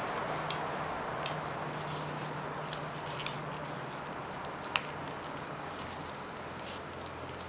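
Square of origami paper being folded and creased by hand: soft paper rustles and small clicks, with one sharper click a little past the middle, over a steady hiss and low hum.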